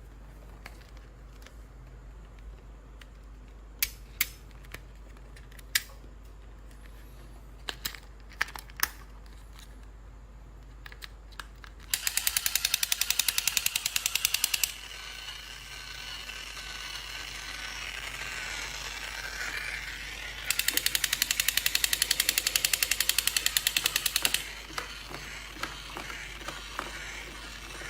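Plastic superhero toy being handled: scattered single clicks, then two runs of rapid, even ratchet-like clicking, about three and four seconds long, in the middle and latter part.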